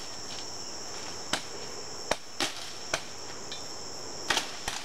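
About six sharp, separate chops of a machete cutting into cane and bamboo stalks, a couple of them in quick succession near the end. Under them runs a steady high-pitched drone of jungle insects.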